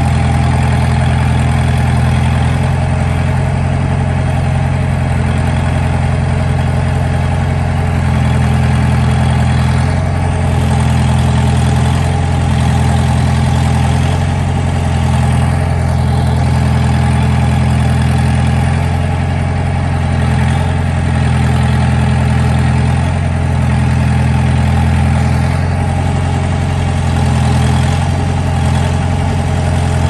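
Engine of an Aliva AL-500 concrete pump running steadily, a loud, even low hum that swells slightly every few seconds.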